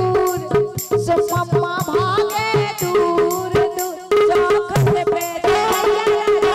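Live Bundeli folk song: a woman's voice singing into a microphone over rattle and hand-drum percussion keeping a steady beat. About four seconds in, the accompaniment thickens and grows louder.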